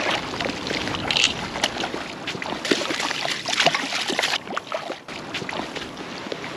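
A hooked trout thrashing and splashing at the water's surface as it is played in. The splashing is heaviest in the first four seconds or so and eases off to occasional splashes after about five seconds.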